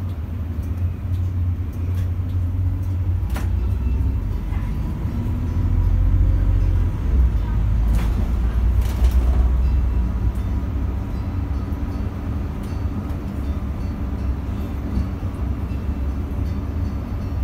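Interior of a Solaris Urbino 15 city bus on the move: a steady low engine and road rumble, with a faint whine rising in pitch about a third of the way in, and a few brief rattles.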